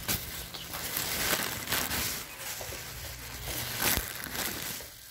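Plastic shopping bag crinkling and rustling close to the microphone, on and off.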